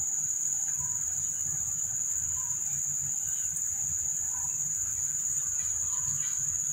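A steady, high-pitched insect trill holding one pitch throughout, over a faint low rumble.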